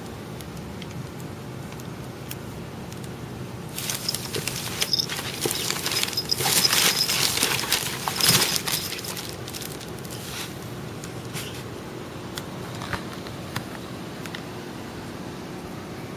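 A two-month-old Chow Chow puppy snoring in its sleep, described as really loud. From about four to nine seconds in there is a louder spell of rustling and crackling.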